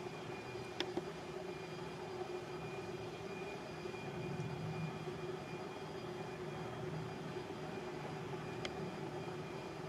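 Female carpenter bee (Xylocopa appendiculata) buzzing as she flies among flowers, a steady low wingbeat hum. Two short ticks, one about a second in and one near the end.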